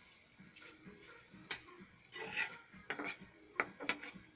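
A cooking utensil stirring hotdog and canned meatloaf in a pan, scraping, with a handful of sharp clinks against the pan from about a second and a half in.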